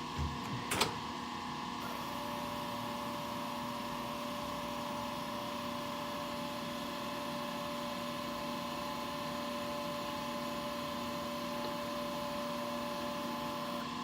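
A click, then the SCM T130 spindle moulder's motorised fence positioning drive runs with a steady whine for about twelve seconds, stopping just before the end as the fence reaches its set position.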